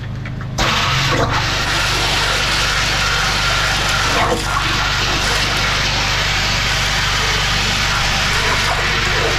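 Water rushing hard from high-pressure drain jetting in a silted pipe, starting suddenly about half a second in and then steady, over the constant hum of the jetting unit's engine.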